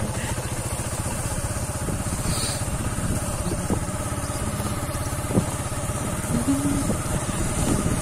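Small motorcycle engine running steadily at low speed while being ridden, with a couple of short knocks along the way.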